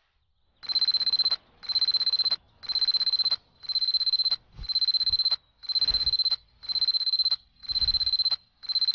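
Alarm clock going off: short bursts of rapid, high-pitched electronic beeping, about one burst a second, starting just under a second in.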